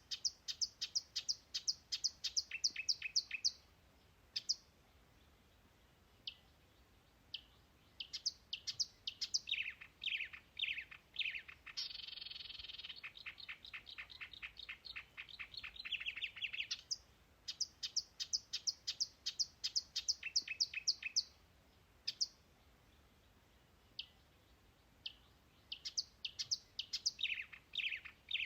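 A songbird singing long phrases of rapid, high repeated chirps and trills, each phrase lasting a few seconds with brief pauses between.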